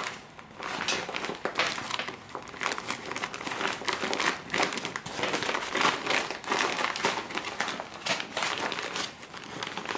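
Blue woven-polypropylene IKEA bag crinkling and rustling as it is crumpled and handled, a dense run of irregular crackles.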